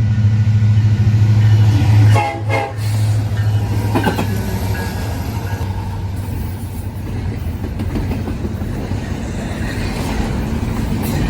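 Sound decoder's diesel locomotive sound playing through a tiny speaker in an HO scale GP38 model: a steady engine hum, with short horn sounds a little over two seconds in.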